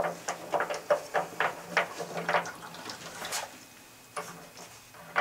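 Irregular metallic clicks and clinks from hand work at the anode rod fitting on top of an electric water heater, as the loosened rod is turned out of its port.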